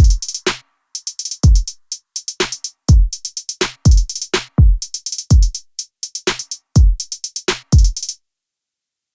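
Electronic drum-machine beat: deep kick drums that fall in pitch, under quick runs of hi-hat ticks. The beat stops suddenly about a second before the end.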